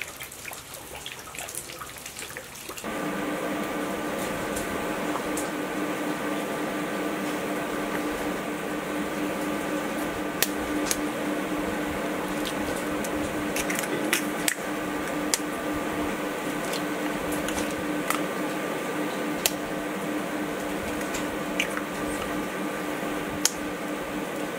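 Eggs being cracked on the rim of a ceramic bowl: a few sharp taps and cracks spread several seconds apart, with soft squishy drops as the contents go in. Under them runs a steady machine-like hum with a low tone, starting about three seconds in.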